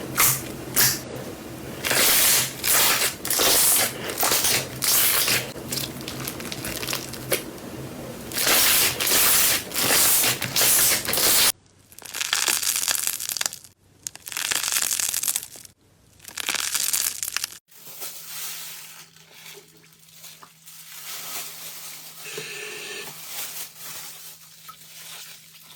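Slime being pressed and squeezed in a run of crackly, crunchy strokes. The sound changes abruptly about 12 s in to fewer, separate squishes, and again about 18 s in to quieter, softer handling.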